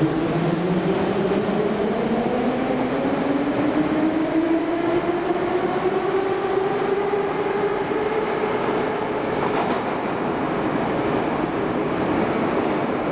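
Metro train accelerating out of an underground station: a rising whine from its traction motors that climbs for about eight seconds and then levels off, over the steady rumble of the wheels on the rails.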